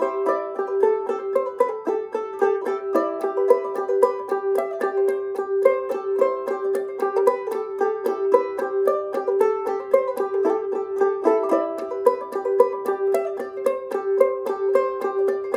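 Ukulele played clawhammer style: a lively old-time fiddle tune in G, fast plucked notes over a ringing high drone string.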